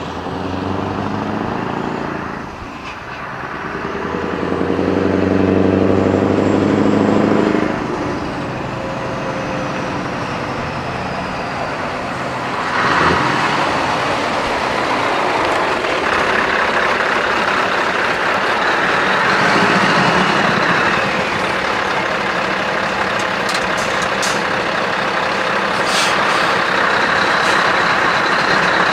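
Scania R500 V8 truck engine with straight-piped exhaust, revved up a few seconds in and held before dropping back about 8 seconds in. About halfway through a steady rushing noise starts and carries on under the engine.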